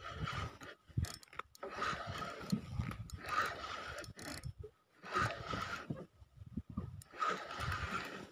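Spinning reel being cranked against a fish pulling on the bent rod, its gears whirring in uneven spells with short pauses.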